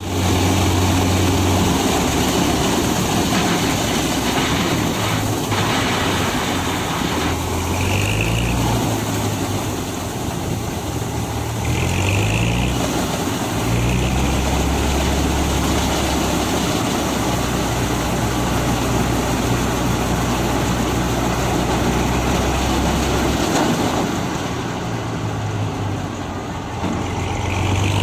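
Lotey 787 combine harvester running while harvesting wheat: a loud, steady drone of engine and machinery. The engine note shifts up and down several times, about a third of the way in and again near the end.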